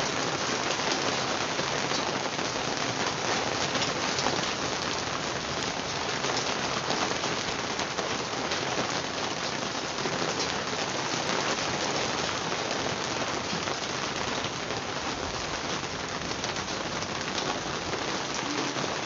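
Steady rain falling and splashing on a wet brick rooftop.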